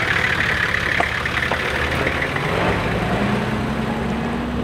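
Vehicle engine idling steadily, its note rising slightly in the last second and a half.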